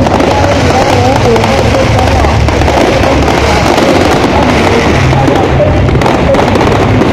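Fireworks display going off: a dense, continuous crackling and banging, loud throughout, with wavering tones running through it.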